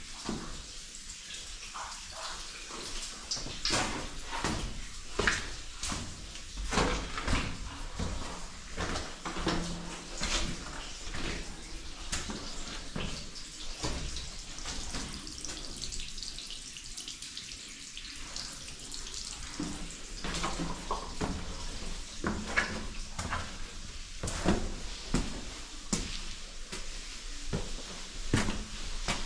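Footsteps at a walking pace on wet, stony ground, a sharp crunch or scrape with each step, with water splashing and trickling underfoot.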